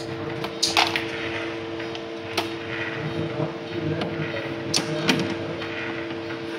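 Clicks and knocks from handling a Scilogex benchtop lab centrifuge: the lid being shut and latched and the front-panel buttons being pressed. The sharpest click comes about a second in, and more follow near the middle and around five seconds in, over a steady hum from nearby equipment.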